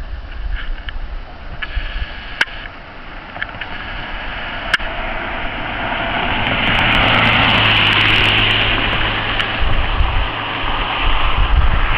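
A car driving past on the road: its tyre and engine noise swells to a peak about eight seconds in, then fades. Wind rumbles on the microphone, and two sharp clicks come in the first half.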